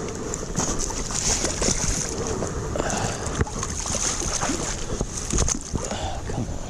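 Wind rumbling on the microphone over water splashing, with scattered small clicks and knocks.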